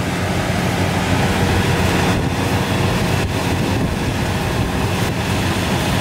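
Kubota DC-70 Plus rice combine harvester running while it cuts and threshes: its diesel engine and threshing machinery make a loud, steady drone.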